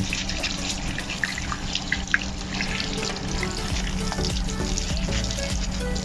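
Tap water running into a sink and spattering over a washing machine's plastic lint filter while a toothbrush scrubs its mesh, with small scraping clicks.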